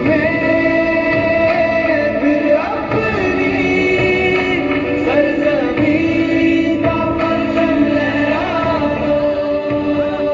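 Show soundtrack music: a voice singing long held notes that slide between pitches, over a steady instrumental accompaniment.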